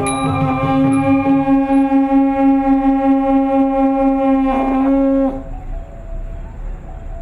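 A wind instrument, the reconstructed Khmer transverse flute, holds one long low note for about five seconds with a slight waver, then stops, leaving only soft faint notes.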